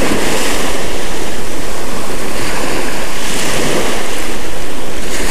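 Small ocean waves breaking and washing up a sandy beach, with wind buffeting the microphone.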